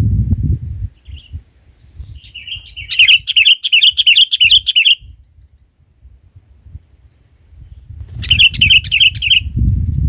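Sooty-headed bulbul (kutilang) calling in two bouts of quickly repeated chattering notes, about four or five notes a second: a longer bout of two seconds in the middle and a shorter one near the end. A steady high insect whine runs behind, and a low rumble fills the first second.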